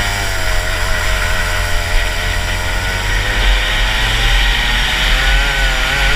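Rotax Max 125cc single-cylinder two-stroke kart engine running hard on track, its revs climbing through the first few seconds, then easing off near the end.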